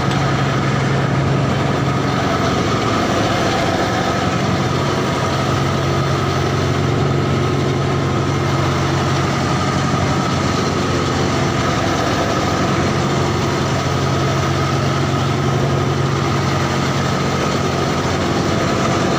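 A fishing boat's engine running steadily, a constant low hum that does not change.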